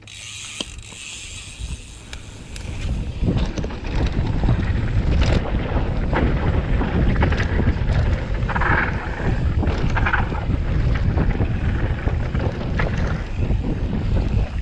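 Wind buffeting the camera microphone of a mountain bike riding down a dirt trail, with knobby tyres rolling over dirt and the bike rattling. The first three seconds are quieter; after that it is loud and rough.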